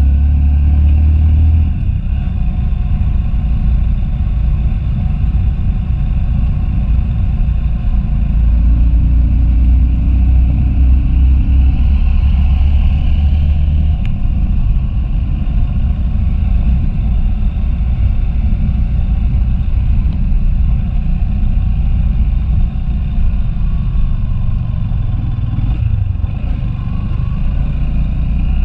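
Motorcycle engine running while riding slowly on a dirt road, with a steady low rumble from the ride and wind on the handlebar-mounted microphone. The deepest rumble is heavier at the start and again from about eight to fourteen seconds in.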